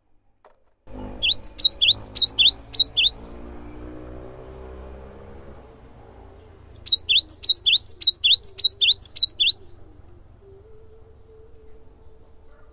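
Cinereous tit (gelatik batu) singing: two bursts of about two seconds each, made of rapid repeated high, sweeping notes at about five a second.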